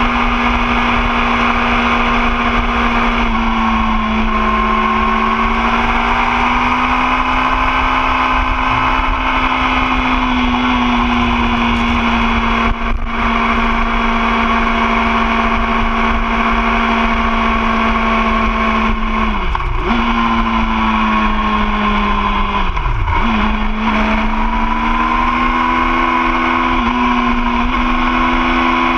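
2013 Yamaha YZF-R6's inline-four engine running steadily under way, with wind and road noise. The engine note drifts slowly, then dips sharply and comes back up twice, about two-thirds of the way through.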